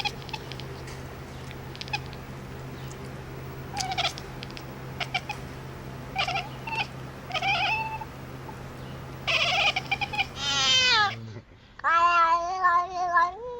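Cat meowing: several short meows, then louder, longer drawn-out meows with falling pitch, and a final wavering yowl. A steady low hum runs underneath until near the end.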